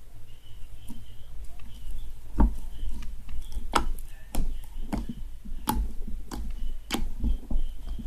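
Slime being squeezed and stretched by hand, giving irregular sharp clicks and pops as air pockets in the stiff slime burst.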